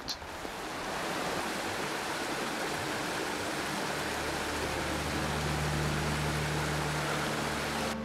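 Steady rushing of a shallow rocky stream, cut off abruptly just before the end. A low steady hum joins about halfway through.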